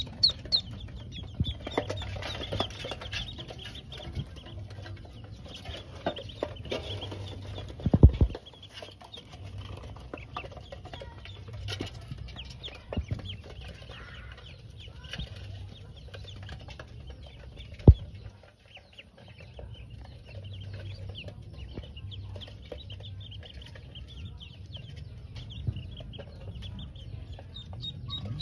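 Pekin ducklings peeping, many short high chirps one after another. Two sharp knocks stand out, one about eight seconds in and another near eighteen seconds.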